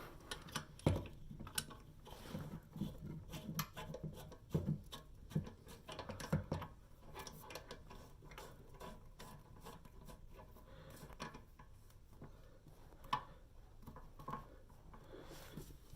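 Hands working plumbing fittings: irregular light clicks, knocks and rubbing as a bidet's water hose is fitted to the toilet's water supply, busiest in the first half and sparser later.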